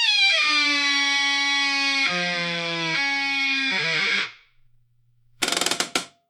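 Metal door hinge creaking: one long, loud, pitched creak that slides down in pitch at the start, shifts pitch a few times and stops after about four seconds. About a second later comes a short rattling clatter.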